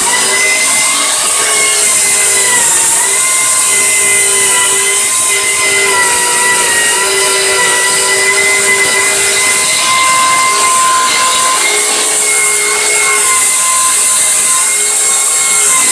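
Homemade table saw and the vacuum cleaner attached to its dust hood running together: a steady motor whine that wavers slightly in pitch over a strong, airy suction hiss.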